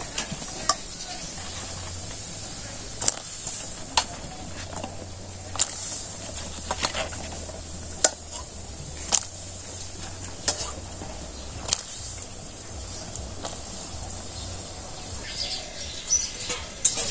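Vegetables being stirred in a cooking pot: a spoon knocks against the pot in sharp, irregular clicks every second or so, over a steady low hum.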